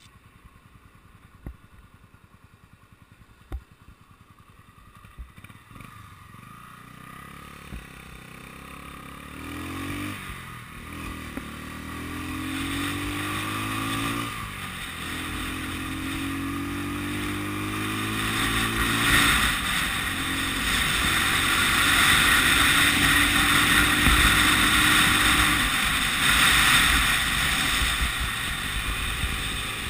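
A 1980 Honda CB250RS single-cylinder motorcycle engine, heard from on the bike. It is quiet at first, with a few sharp clicks, then pulls away and accelerates through the gears. The pitch rises and drops back at each shift, and the sound grows steadily louder, with rising wind noise.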